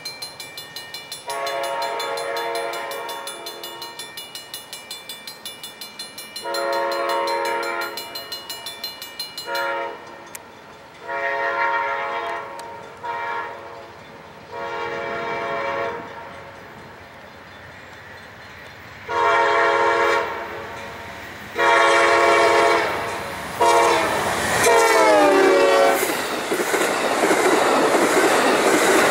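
Amtrak GE P42DC locomotive horn blowing a series of long and short blasts. Through the first ten seconds a grade-crossing bell rings in fast, even strokes. Later the horn sounds a long, long, short, long crossing pattern whose last blast drops in pitch as the locomotive passes, and the rumble and clickety-clack of passenger cars rolling by takes over.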